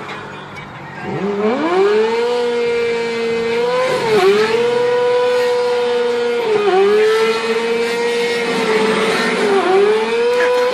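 Inline-four sportbike engine revved hard: the note climbs steeply about a second in, holds high with three brief dips, then falls away at the end.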